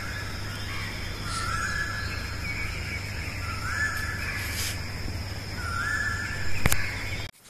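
Asian koel calling again and again, a rising note about every two seconds, over a steady low background hum. A sharp click comes near the end, then the sound drops out briefly.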